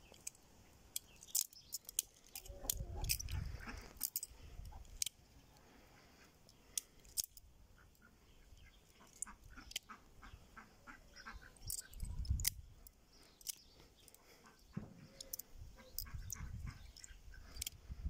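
Butterfly knife being flipped and twirled: irregular sharp metallic clicks and clacks as the handles swing around the pivots and knock against the blade and each other. Low rumbles come in between at times.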